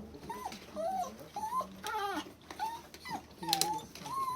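A dog whining in short, high, repeated cries, about two a second. A sharp click comes about three and a half seconds in.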